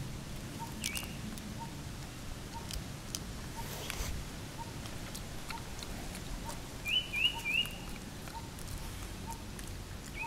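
Short high chirping calls from a bird or small animal: one about a second in, then three in quick succession around seven seconds in, which are the loudest sounds here. Under them a faint pip repeats steadily about every 0.7 s, with a few soft clicks.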